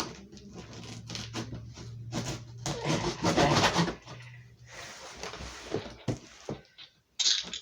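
Cardboard shipping box being handled and worked open: rustling, scraping and light knocks of cardboard and packing material, busiest around the middle, with a faint low hum through the first half.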